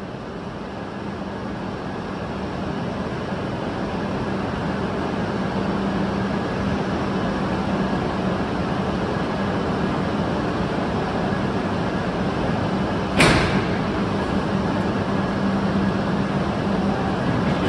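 Two Shinkansen trainsets, a green Hayabusa and a red Komachi, coupling nose to nose: a steady hum and running noise slowly grow louder, then one sharp clunk about 13 seconds in as the couplers engage.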